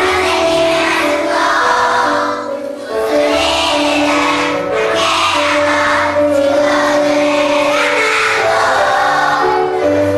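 A group of young children singing together over instrumental accompaniment, the notes held steadily.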